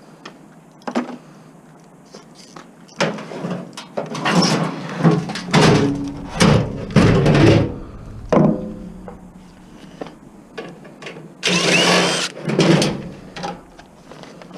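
Metal appliance parts being handled and pulled apart during scrapping: a run of clanks, knocks and rattles, with a longer scrape near the end.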